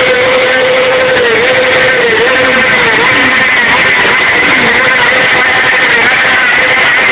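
Motorcycle engine held at high revs during a tyre-smoking burnout. It is loud and steady, with its pitch dipping briefly a few times as the throttle eases and comes back.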